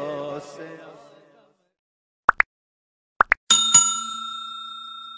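A chanted Urdu devotional vocal fades out with reverb, then after a short silence come two pairs of quick clicks and a bell-like ding, struck twice close together and left ringing: a subscribe-and-notification-bell sound effect.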